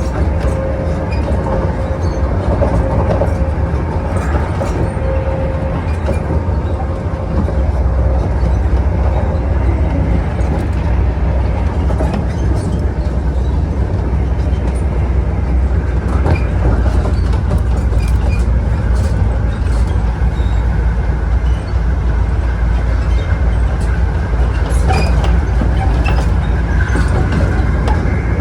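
Class 43 HST power car's diesel engine running under power with a steady low drone, which gets a little louder about 8 seconds in, and occasional clicks of wheels over rail joints.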